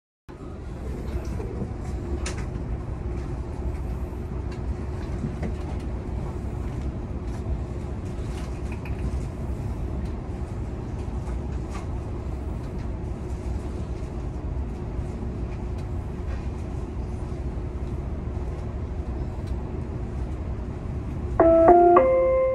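Inside a Dubai Metro car stopped at a station: a steady low rumble and hum of the train's running equipment, with a faint constant tone and occasional small clicks. Near the end a louder chime of a few stepped tones sounds, the signal that comes before the doors-closing announcement.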